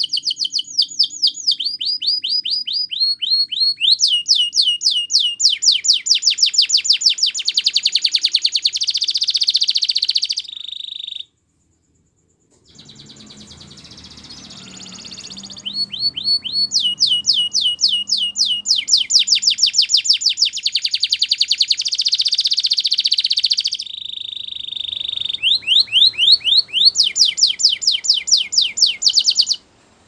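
Canary singing: long, fast trills of repeated notes mixed with quick falling whistles. It stops for a few seconds near the middle, then starts up again and breaks off just before the end.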